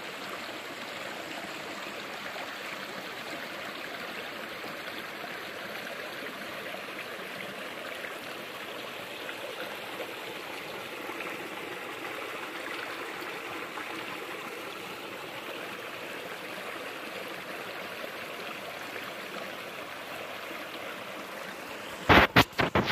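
Mountain stream running steadily, an even rush of water. Near the end a few loud, sharp knocks cut in over it.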